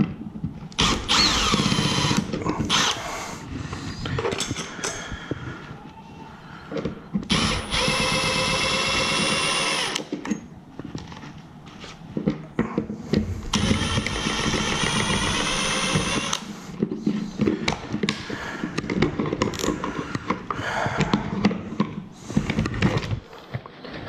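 Milwaukee Fuel cordless driver spinning out screws from a wall outlet and its box, whining in three runs of one to three seconds: one near the start, one about seven seconds in and one about fourteen seconds in. Between the runs come clicks, knocks and rattles of the plastic outlet and box being handled.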